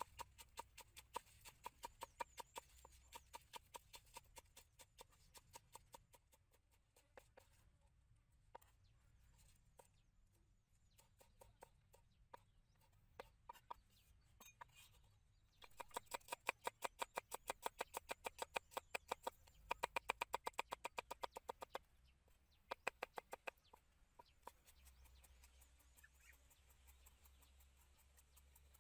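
Cleaver chopping spring onions and garlic on a wooden chopping board: quick, regular knocks of the blade on the wood, in runs with pauses, the fastest and loudest run about halfway through.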